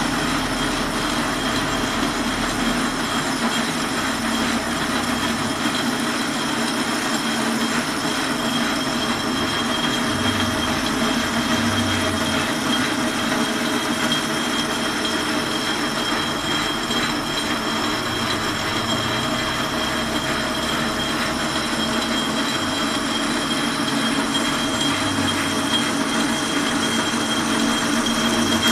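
Metal lathe taking a turning cut on a thick steel bar, the cutting tool stripping off the bar's outer skin. The machining noise is steady throughout, with a high whine held above it.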